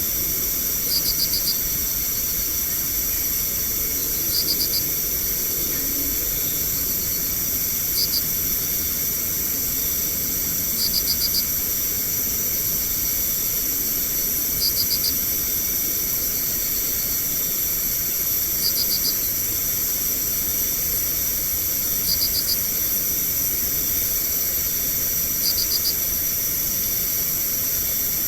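Night insects: a steady high-pitched chorus, with one insect, likely a cricket or katydid, giving short bursts of four or five quick chirps about every three and a half seconds.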